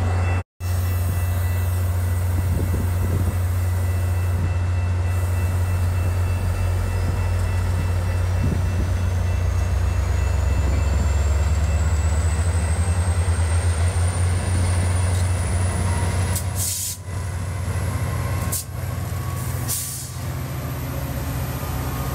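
Metra MP36PH-3S diesel locomotive running with a deep steady rumble as its push-pull commuter train pulls out, a whine climbing steadily in pitch as it gets under way. A few short hisses near the end.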